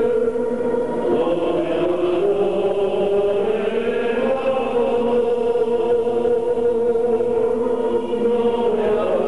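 Choir singing a slow hymn in long, sustained notes.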